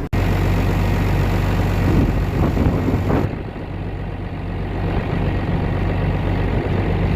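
Vehicle engine running with a steady low hum under a noisy rush; the high hiss drops away about three seconds in.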